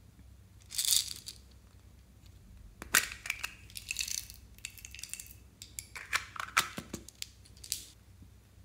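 Small plastic craft container opened and tiny green plastic beads shaken out of it into clear slime in a glass dish. A short crackle comes about a second in, then clusters of light clicks and rattles as the beads tumble out.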